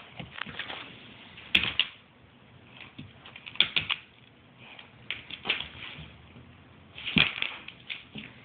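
A Weimaraner's claws clicking and scrabbling on a hardwood floor, in several quick clusters of sharp taps with short pauses between them.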